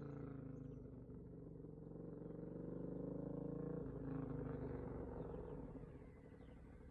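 Suzuki V-Strom 1000's V-twin engine running, its pitch rising through the first few seconds and dropping away about four seconds in. It grows fainter near the end.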